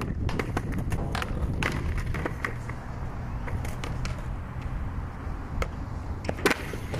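Skateboard clacking on a ledge box and concrete: a series of sharp knocks and clicks from the deck and wheels, the loudest near the end, over a steady low rumble.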